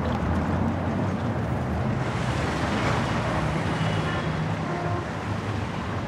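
A steady rushing ambience with a low rumble, like wind or distant traffic. It swells a little around the middle, and a few faint, brief tones come in during the second half.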